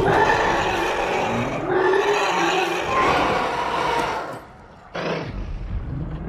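Animated film dragons roaring: long, rough roars that fade about four and a half seconds in, then another roar starting sharply about five seconds in.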